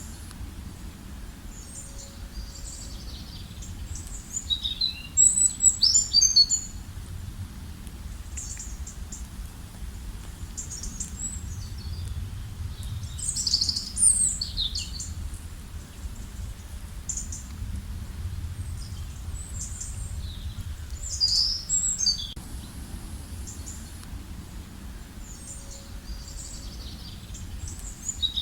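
Songbirds singing: short groups of high chirps and trills a few seconds apart, over a steady low rumble.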